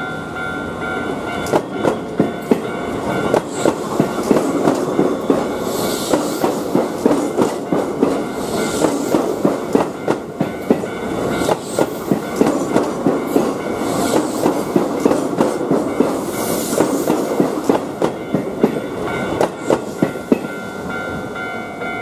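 Keihan electric commuter train running through a level crossing, its wheels clattering over the rail joints in a quick, uneven rhythm. Under it the crossing's warning bell rings steadily, heard clearly at the start and again near the end as the train clears.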